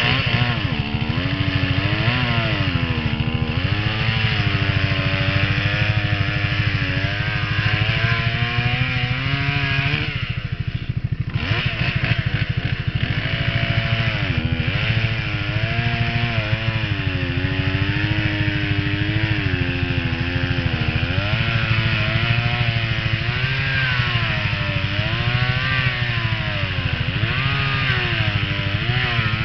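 Two-stroke gas chainsaw running under cutting load, its pitch rising and sagging again and again as the chain bites into a wet log. It drops off briefly about ten seconds in.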